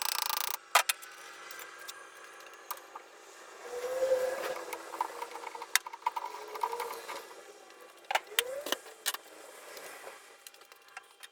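Metal tools and parts being handled: scattered clicks, clinks and knocks with some scraping and ringing, and a short burst of noise at the start.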